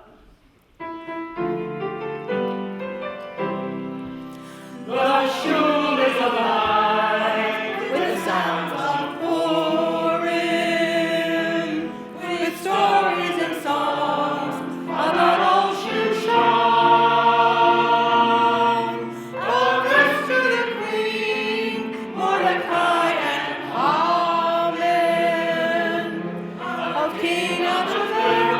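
A group of voices singing a song together over an accompaniment, after a short introduction of sustained instrumental chords; the voices come in about five seconds in.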